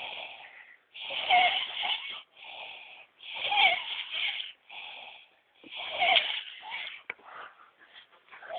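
A sleeping pet snoring loudly. Three strong, wheezy snores come about two and a half seconds apart, with softer breaths between them.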